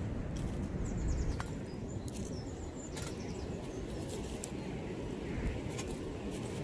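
Small stick fire crackling in a wood-burning box stove, giving a few sharp pops over a steady low rumble. Birds chirp in short high calls now and then.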